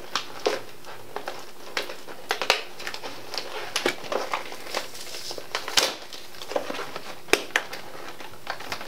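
Packaging crinkling and crackling in irregular bursts as it is handled and pulled open.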